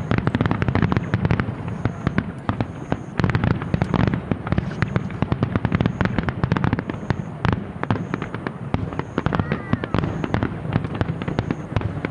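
Aerial fireworks bursting in rapid, dense succession: overlapping bangs and crackles, many a second, with no let-up.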